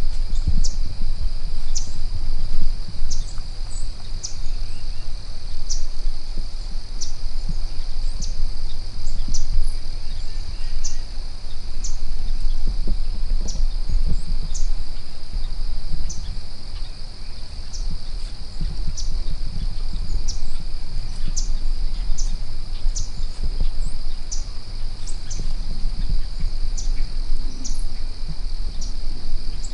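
Outdoor ambience of insects: a steady high drone with short chirps, irregular and roughly once a second, over a steady low rumble.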